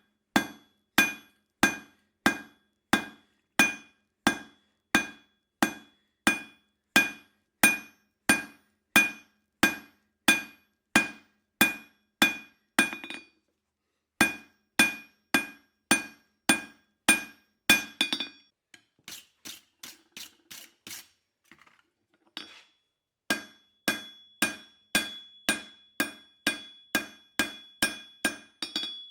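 Blacksmith's hand hammer striking steel bar stock on an anvil, about two blows a second, each with a bright metallic ring. The blows stop briefly about halfway, give way to a run of lighter taps, then resume with the anvil ringing on between strikes.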